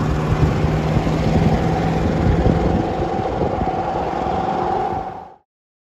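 Road traffic with a cammed 350 V8 pickup, running through dual glass-pack exhausts, pulling away down the road among passing cars. The sound cuts off suddenly about five seconds in.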